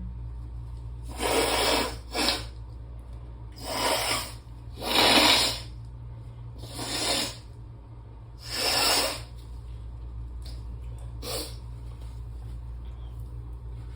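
A person with allergy congestion blowing their nose hard: six forceful blows in about nine seconds, then a short faint one near the end.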